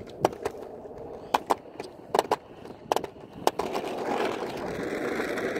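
RipStick caster board wheels rolling over concrete, clacking in quick pairs as the front and back wheels cross the sidewalk joints, then settling into a steady rolling rumble on smoother pavement near the end.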